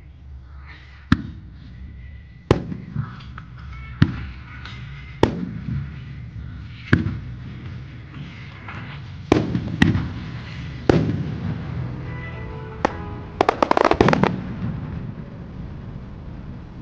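Aerial firework shells bursting in a music-synchronised starmine, a sharp boom about every one to two seconds with a rumble rolling between them, then a rapid string of crackling reports late on.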